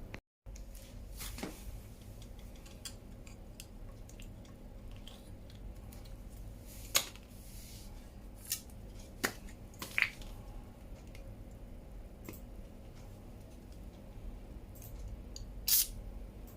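A few light, sharp clicks and taps of hand tools and parts being handled at a bicycle crank, spaced irregularly over a low steady hum.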